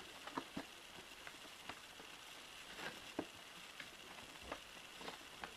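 Faint, scattered clicks and scratches of fingernails and fingers handling a cardboard advent calendar box as a small door is picked open, over a low steady hiss.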